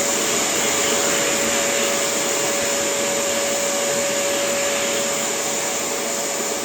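An electric motor driving a fan, running steadily at full speed: one held whine over a strong rush of air.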